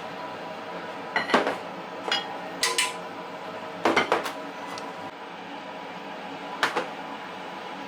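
Kitchenware being handled: dishes and utensils clink and knock in a few short clusters over a steady background hum.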